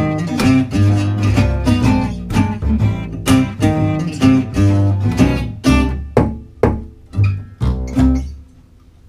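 Two acoustic guitars and a plucked double bass playing the closing bars of a piece. The chords come further apart toward the end, and a final chord about eight seconds in rings out and fades.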